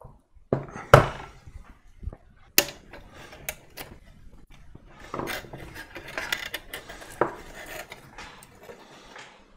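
Cables and plastic connectors being handled inside a metal 3D-printer control box: scattered sharp clicks and knocks, the loudest about a second in, with rustling and small clicks of cable sleeving and connectors in the second half.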